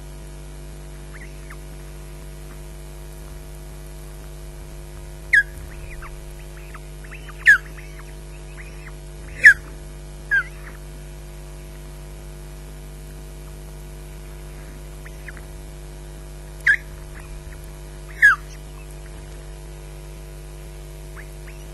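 Osprey giving short, sharp whistled calls, each dropping in pitch, six times at irregular intervals, the loudest near the middle. A steady electrical hum runs underneath.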